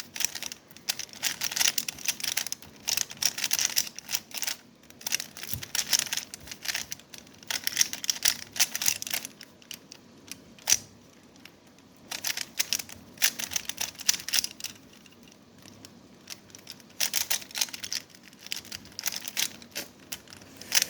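Plastic Rubik's Cube layers being turned by hand: fast runs of clattering clicks, broken by a couple of short pauses near the middle. The cube is stiff and difficult to rotate.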